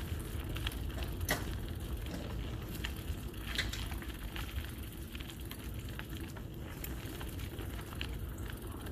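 Tyres rolling slowly over a sandy gravel dirt road, crunching with scattered small pops of grit under a steady low rumble.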